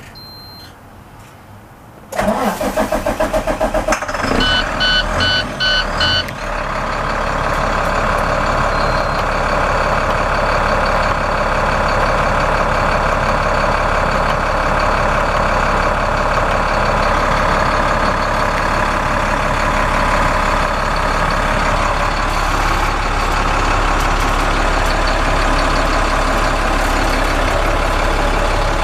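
Diesel engine of a 2008 International 7400 plow truck, heard inside the cab, cranked by the starter about two seconds in, with a run of short dashboard warning beeps, then catching and settling into a steady idle.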